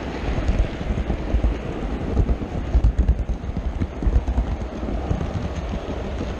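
HO scale model train running along the track, heard from a camera riding on it: a steady rumble of wheels on rail with irregular knocks and jolts, heaviest about two to four seconds in.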